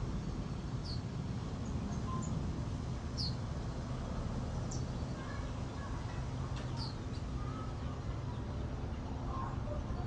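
Outdoor ambience picked up by a wireless lavalier mic in stereo mode under a fur windscreen: birds give short, high, falling chirps every second or two, with a few fainter lower calls, over a steady low rumble.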